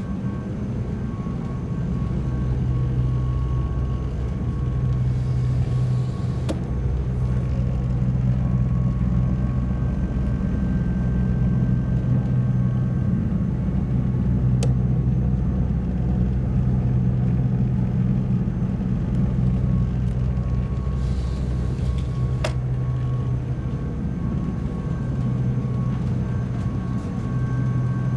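Steady low engine drone of the high-speed passenger ferry Koshikijima, heard inside its passenger cabin, with a few faint clicks.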